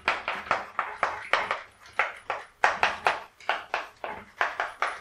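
Chalk writing on a chalkboard: a quick run of short tapping, scratching strokes, about four a second, as characters are written out.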